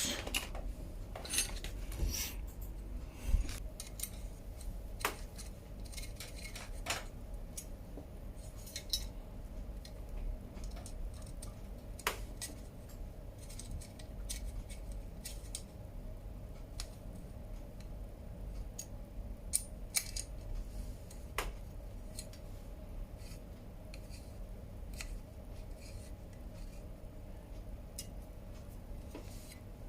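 Scattered small metallic clicks and clinks of chainring bolts and tools being handled while a narrow-wide chainring is fitted to a bicycle crankset, with a few short ringing ticks of metal on metal.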